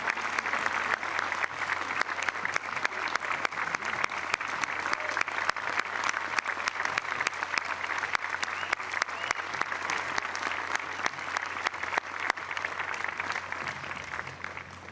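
Crowd applauding steadily, a dense patter of many hands clapping, fading away near the end.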